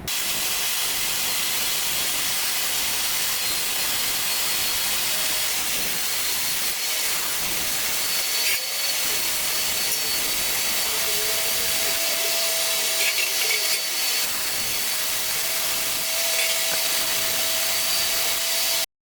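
Handheld laser welder running dual silicon bronze filler wire, heard as a steady hiss. A faint steady whine joins about five seconds in, and the sound cuts off abruptly near the end.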